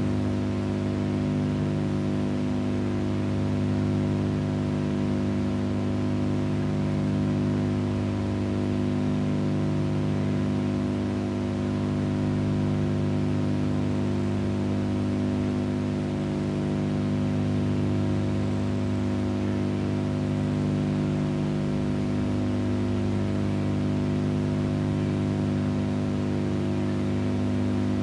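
Aircraft engines running steadily, a low droning hum with a slow regular throb about every three to four seconds, like engines turning slightly out of step.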